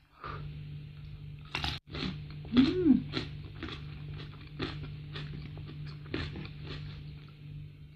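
Close-miked chewing with many crisp crunches as a mouthful of a rice meal with fried salted fish and young jengkol is eaten. A short rising-and-falling tone about two and a half seconds in, over a steady low hum.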